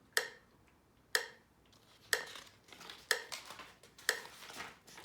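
A steady beat of sharp percussive taps, about one a second, each with a brief ring. A busier rattling texture fills the gaps between taps in the latter half.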